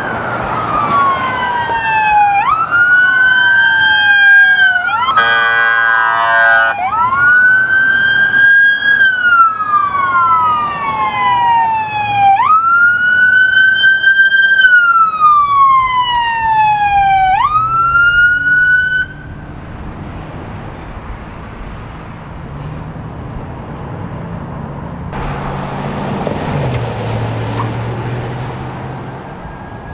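Police vehicle sirens on wail, rising and falling in slow sweeps of about five seconds, with a brief horn blast about five seconds in. The sirens stop abruptly about two-thirds of the way through, leaving traffic and engine noise.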